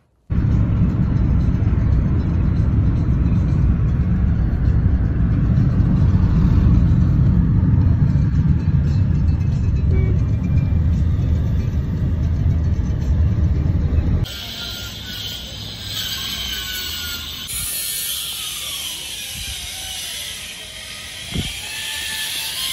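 Steady low rumble of road and engine noise inside a moving car's cabin. About two-thirds of the way through it cuts off abruptly to quieter outdoor street ambience with a high hiss, and there is a single short knock near the end.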